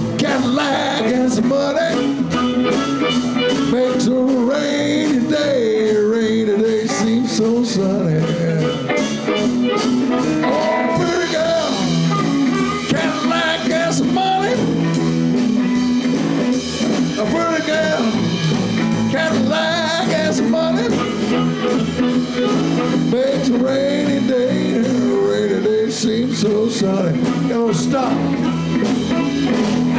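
Live blues band playing a shuffle: electric guitar, bass and drums with a steady beat, and a wavering lead line over the top.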